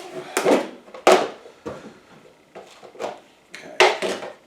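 Hard plastic knocks and clatters from the parts of an Easycook two-tier microwave steamer being unclipped and lifted apart: several separate clacks, the loudest about a second in and another cluster near the end.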